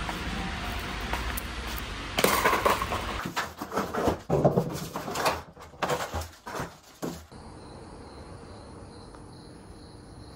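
A steady low rumble that stops about three seconds in, then a few seconds of irregular knocks and rustling, then insects, likely crickets, chirping steadily and faintly from about seven seconds in.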